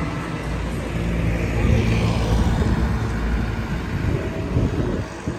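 A motor vehicle passing close by, its engine giving a steady low hum over street traffic noise.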